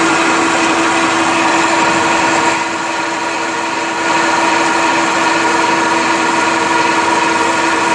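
Craftsman horizontal metal-cutting bandsaw running free with no workpiece: its single-phase capacitor-start motor and the moving blade give a loud, steady hum with a high whine over it.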